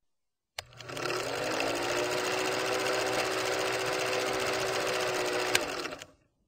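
Film projector running: a steady mechanical clatter with a hum that rises slightly as it starts. It begins with a click about half a second in, and there is a sharp click shortly before it stops about a second before the end.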